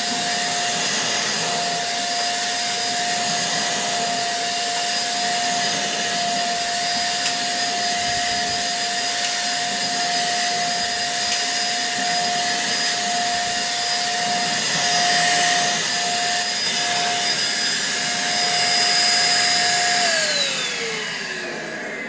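Mondial Cyclone Stick 1000 stick vacuum cleaner running steadily as it is pushed over a shaggy rug: a constant airflow rush with a high motor whine. About two seconds before the end it is switched off, and the whine falls in pitch as the motor winds down.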